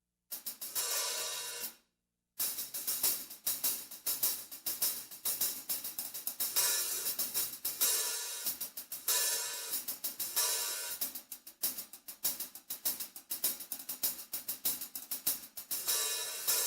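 Handmade Kingdo cymbals played in quick, bright strikes that die away fast: a short flurry just after the start, a brief pause, then a long unbroken run of rapid hits.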